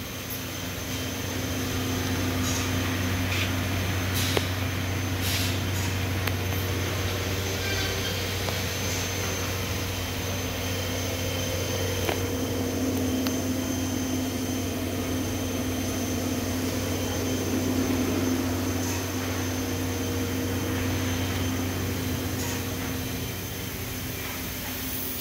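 Hurco VMX-42 vertical machining center running: a steady low hum with a thin high whine over it, and a few faint clicks.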